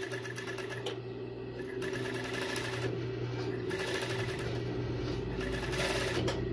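Kansai industrial sewing machine running steadily, stitching binding tape fed through its tape binder onto the edge of the fabric; a rapid, even stitching rhythm over a steady motor hum, a little louder from about two seconds in.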